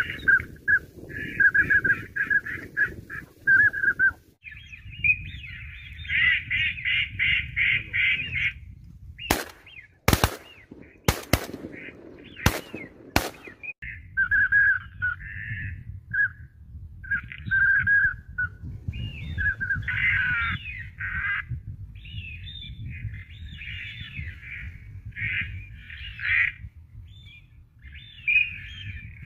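Ducks quacking in rapid runs of short calls, repeated throughout. Partway through comes a cluster of several sharp cracks.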